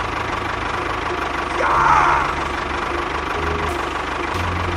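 Tractor engine running steadily with a low chugging, with a brief louder burst of noise about two seconds in.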